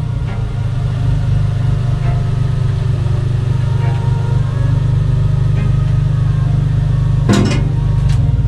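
Renault Twingo Cup race car's engine running steadily at low revs as the car rolls slowly, heard from inside the stripped cabin. About seven seconds in comes a short, sharp burst of noise.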